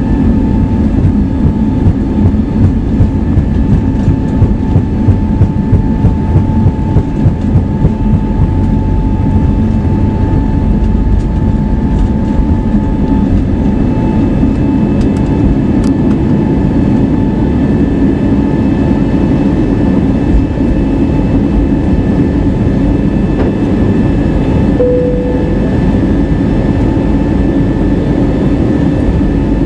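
Cabin noise of an Airbus A320neo rolling on the ground: a heavy rumble from the wheels, with regular thumps about two a second for several seconds, over a steady engine hum. Near the end there is a brief single tone.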